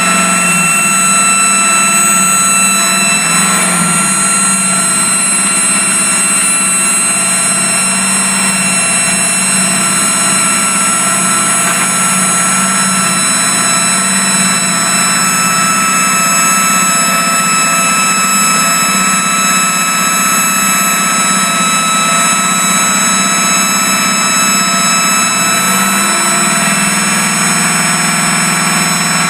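Predator small engine running steadily on a carburetor that is due for a rebuild, with a steady high whine over the engine note. The engine note drops slightly near the end.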